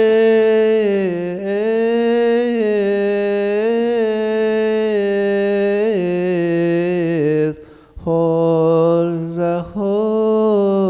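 A single male voice singing a slow, melismatic Coptic liturgical chant, long notes ornamented with gentle turns of pitch. The chant breaks off about three quarters of the way through and then carries on.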